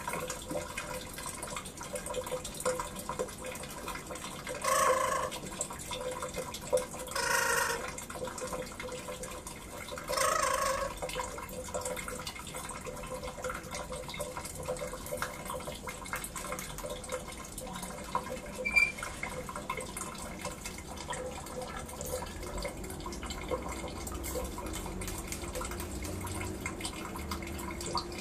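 Black-capped lory giving three short, harsh squawks a few seconds apart, over a steady background of running water with small drips.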